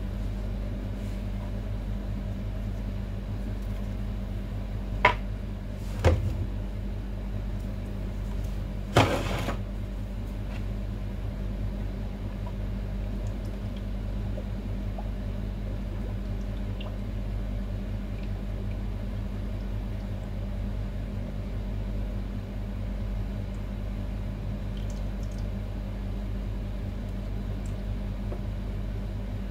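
Steady low electrical hum, with three short knocks about five, six and nine seconds in, the last one a little longer, as the salon chair's metal hydraulic pump cylinder is handled and tipped over.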